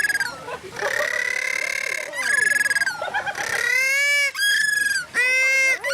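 A bird giving a series of loud, drawn-out calls, about six in a row, several dropping in pitch at the end.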